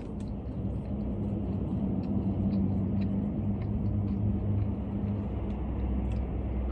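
Steady low rumble of an idling car engine, with a faint hum and a few faint clicks.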